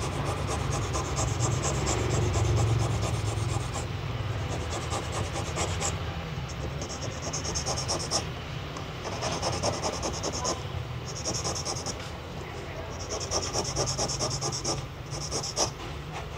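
Coarse 150-grit sandpaper on a hand-held sanding stick rubbed back and forth over the edge of an acrylic amulet frame, scratchy strokes coming in short runs. A steady low hum underneath.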